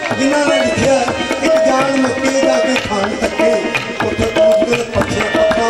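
Hand drums playing a fast, steady rhythm, the bass drum's pitch swooping up and down with its strokes and a short ringing higher note sounding about once a second.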